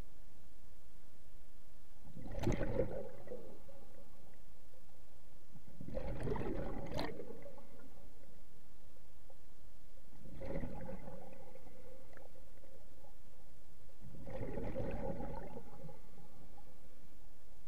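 Scuba regulator exhaust: four gurgling bursts of bubbles about every four seconds, one for each breath the diver breathes out.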